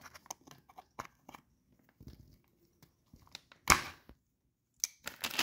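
Small metal clicks and scrapes, then one sharp knock about three and a half seconds in and a few more near the end: a hand tool striking a drilled rivet on a Yamaha Banshee stock clutch basket to knock it out.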